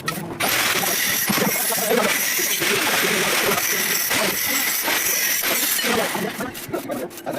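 Electric arc welding on a steel railing: a steady, loud crackling sizzle of the arc starts about half a second in, then turns into broken spitting and ticking for the last second or so as the arc breaks up.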